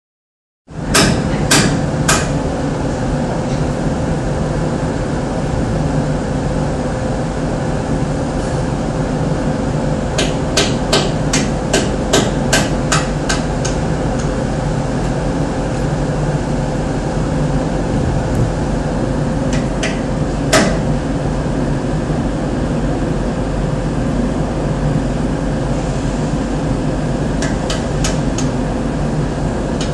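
Steady drone of ship's machinery with a constant hum, broken by sharp knocks like hammer blows. There are three about a second in, a quick run of about a dozen at roughly three a second around ten to thirteen seconds in, a single louder one near twenty seconds, and a few more near the end.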